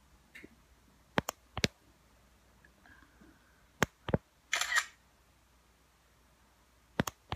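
Smartphone screenshot shutter sounds and button clicks: several sharp clicks, mostly in pairs, and a short shutter burst about four and a half seconds in, as the screen is captured.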